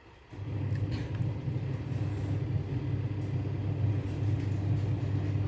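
A steady low mechanical hum with a constant pitch, setting in just after the start.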